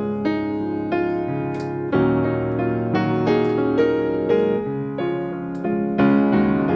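Background music: a piano melody with chords, notes changing about every half second.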